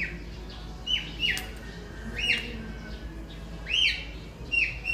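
A small bird chirping: short down-slurred notes about a second apart, quickening into a quick run of chirps near the end.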